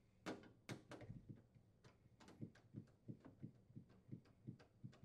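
A 1/4 inch nut driver unthreading a screw from a refrigerator freezer's plastic liner: a few sharp clicks as the driver is set on the screw, then a run of faint, even ticks, about four a second, as the screw is turned out.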